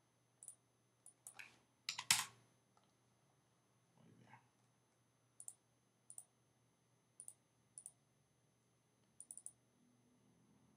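Faint, scattered clicks of a computer mouse and keyboard, about a dozen single clicks spread out, the loudest about two seconds in.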